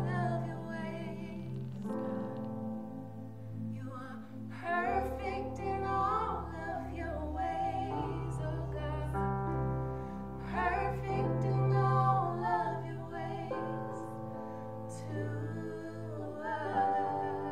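Two women singing a worship song, their voices wavering with vibrato, over an accompaniment of long held low notes.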